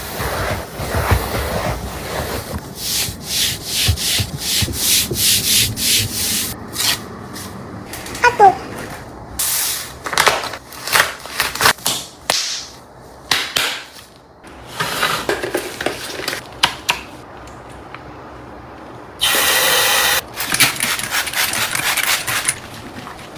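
Household cleaning sounds: quick repeated scrubbing strokes, about two or three a second for a few seconds, then a short squeak about eight seconds in. Scattered rubbing strokes follow, and a steady rush of noise lasts about a second near the end.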